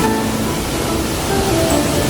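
Background music with slow, held notes over a steady rush of water noise.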